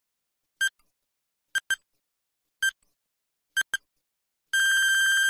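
Quiz countdown timer beeping: short electronic beeps on one pitch about once a second, some of them doubled, then a long steady beep near the end as the count runs out.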